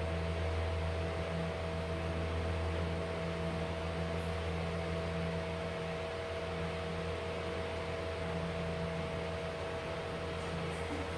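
A steady mechanical hum with several fixed tones over an even hiss, like a running appliance or fan. The deepest part of the hum weakens about six seconds in.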